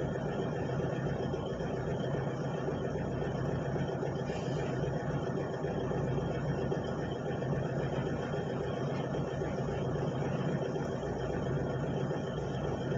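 Excavator engine running steadily at an even level.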